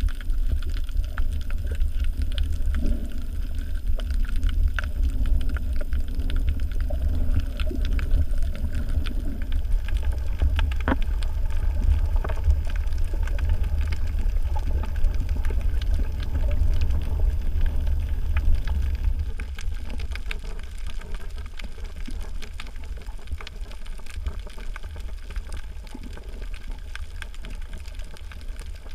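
Underwater ambience picked up by a diving camera: a steady low rumble of moving water with scattered sharp clicks and crackles, easing slightly about two-thirds of the way through.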